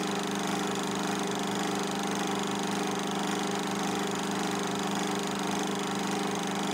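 Film projector running: a steady mechanical hum with a constant hiss.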